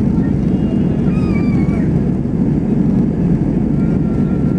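Airbus A320-232's IAE V2500 engines at takeoff thrust during the takeoff roll, heard inside the cabin as a loud steady rumble mixed with runway noise. A faint high wavering squeal is heard briefly about a second in.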